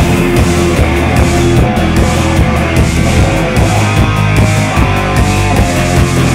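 Live dark-synth rock music: an electric guitar is played over a steady beat and heavy bass.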